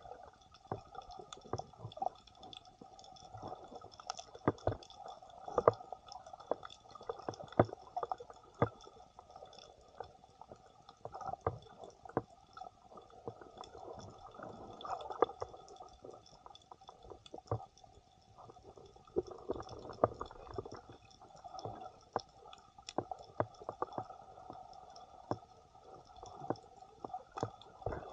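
Muffled underwater sound picked up through a waterproof camera housing: irregular crackling clicks over a dull sloshing of water.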